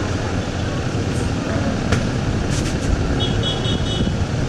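Steady street traffic noise, with a few sharp taps around the middle and a short run of high-pitched beeps just past three seconds in.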